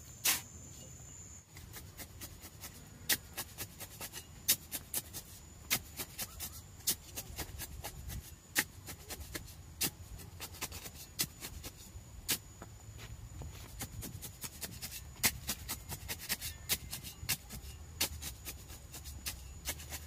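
Steel shovel scraping and crunching into a pile of dry cement and gravel as it is mixed by hand, with stones clicking against the blade in irregular strokes several times a second.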